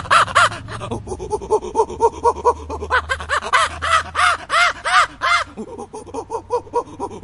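Monkey calling in a rapid series of short hoots, each rising and falling in pitch, several a second. A louder, higher run of calls comes in the middle, and the calls grow fainter near the end.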